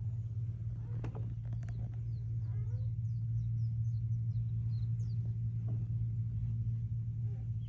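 A steady low mechanical hum, with small birds chirping faintly and a few light clicks.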